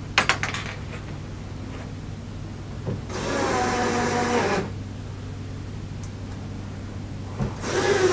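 Cordless drill/driver running twice, about a second and a half each time, driving screws into the wooden wall-bed cabinet, with a click just before the first run.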